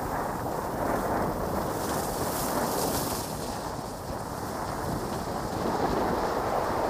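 Wind buffeting the microphone of a camera carried by a skier moving downhill, with the rush rising and falling. A brief, brighter hiss comes about two to three seconds in.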